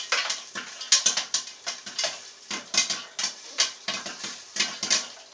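Popcorn kernels popping in a covered pot on the stove: irregular sharp pops, several a second, a batch still cooking.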